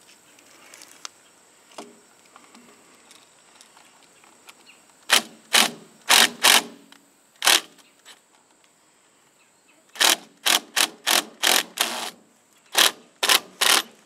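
Cordless drill-driver run in short trigger bursts, driving the terminal screws of a GFCI receptacle. There are a few bursts about five to eight seconds in, then a quicker run of about six, and a few more near the end.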